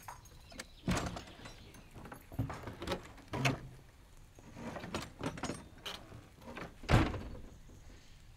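Clunks and rattles of a wooden door being handled, in uneven clusters, with a single louder thud about seven seconds in.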